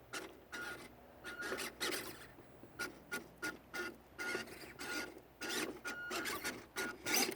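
WPL B36 RC scale truck's small electric drive whining in short bursts of throttle, on and off several times, amid irregular scraping and crackling as it crawls over rough ground.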